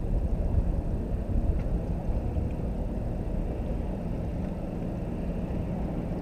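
Wind buffeting the microphone: a low, gusting rumble that rises and falls irregularly.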